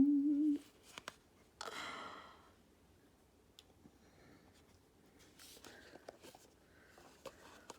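A brief hummed 'mm', then a short breathy exhale about two seconds in, followed by faint small clicks and rustles of a tarot deck's box being worked open by hand.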